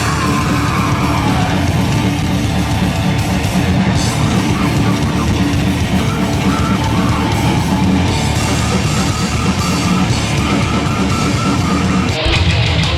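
Live heavy metal band playing loud and dense, with distorted guitars and a drum kit.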